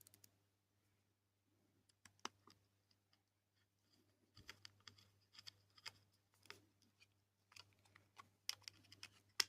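Faint scattered clicks and taps of small plastic robot parts being handled and fitted together, picking up in the second half.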